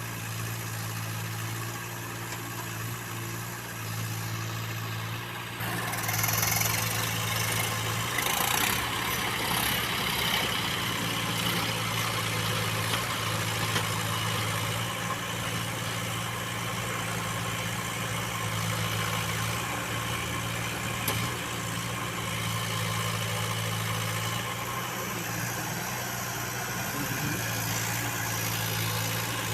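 Case 851 EX backhoe loader's diesel engine running steadily at idle, picking up about six seconds in to run louder and noisier under load, then holding there.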